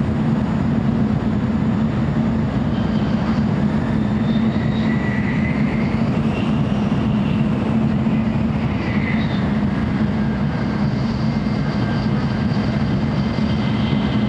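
Cabin noise inside a JR Central N700A shinkansen in motion: a steady low rumble and hum, with faint high whining tones that slide in pitch now and then.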